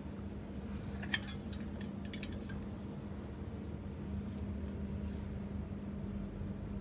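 Clothes hangers clicking and clinking against a shop rail as garments are pushed along it: one sharp click about a second in, then a quick run of lighter clicks, over a steady low hum.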